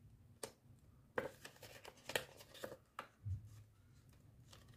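Faint rustling of plastic cash envelopes and polymer banknotes being handled, with a few short crisp clicks and a soft thump a little past three seconds in.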